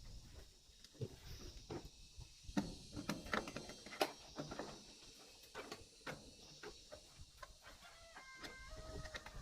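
Chickens clucking, with a short pitched call near the end, among scattered irregular knocks and clicks.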